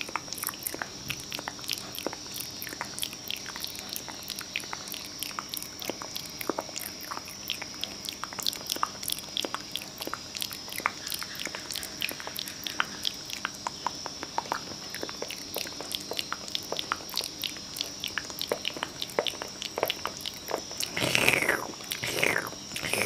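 ASMR mouth sounds close to the microphone: a dense, irregular run of wet clicks and smacks, like nibbling or chewing. A couple of short falling sounds come near the end.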